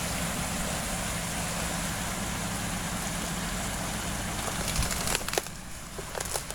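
Truck engine running as it drives through floodwater, with a steady rush of water over the engine hum. About five seconds in the rushing drops away and a few sharp splashes or knocks are heard.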